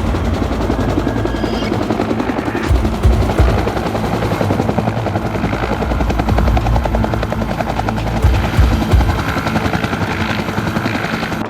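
Helicopter running, its rotor blades giving a fast rhythmic chop over a steady low rumble.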